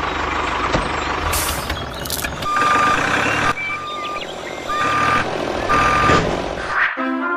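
Heavy truck engine running with a reversing alarm beeping four times, about once a second; the sound cuts off near the end.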